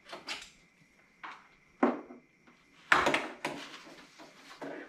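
Handling noise: a series of short rustles and knocks as an orange safety flag is worked onto an LED whip light pole. The loudest comes about three seconds in.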